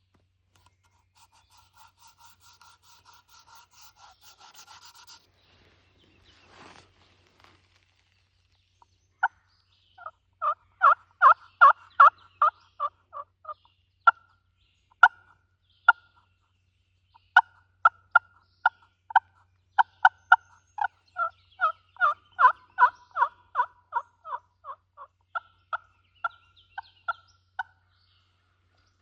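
Turkey calling: a faint rapid run of notes in the first few seconds, then from about nine seconds in a long series of loud, short yelping notes, several a second with brief pauses.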